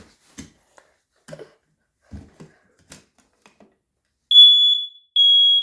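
A First Alert smoke detector sounding its test alarm: loud, high-pitched beeps about half a second long, the first starting about four seconds in and a second following right after it. Before them come a few faint knocks and clicks.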